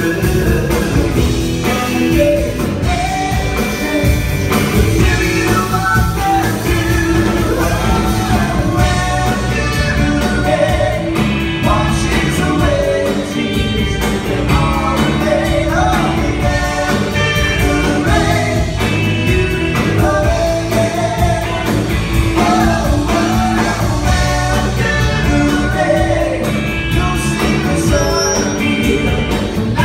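A live rock band plays with electric guitar, electric bass and drums, and a man sings into a microphone over them.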